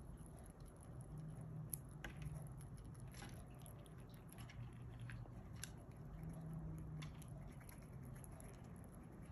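Fox squirrel chewing and nibbling a nut snack: faint, scattered small crunches and clicks.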